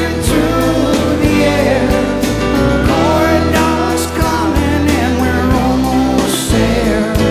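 Background music: a song with a singing voice over instruments and a steady drum beat.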